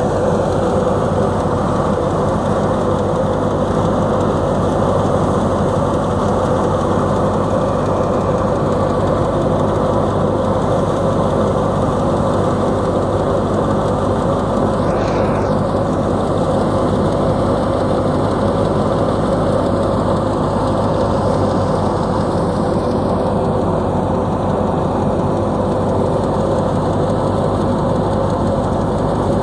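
Tractor-powered wheat thresher running steadily under load as sheaves of wheat are fed into it, the tractor engine and the threshing drum making one constant mechanical noise.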